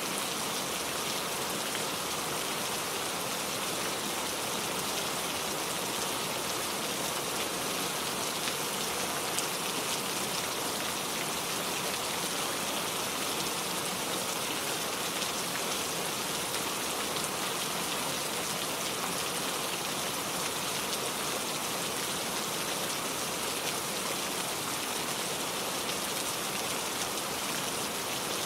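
Heavy rain falling steadily, a dense even hiss of drops with fine scattered pattering on surfaces.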